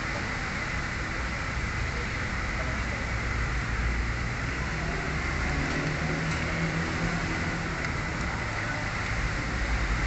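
Steady low mechanical rumble with an even hiss over it.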